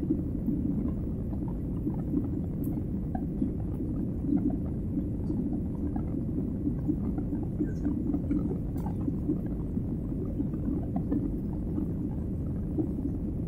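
Steady low drone of a jet airliner's engines and rushing air, heard inside the passenger cabin during the climb after takeoff, with a few faint ticks.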